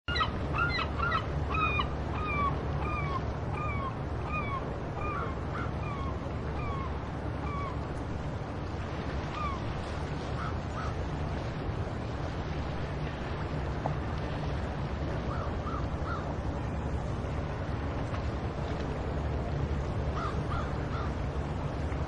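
Gulls calling: a fast run of short, downward-slurred calls, about two a second, that trails off after several seconds, followed by scattered groups of two or three calls. Under them runs a steady low rumble of seaside surf and wind.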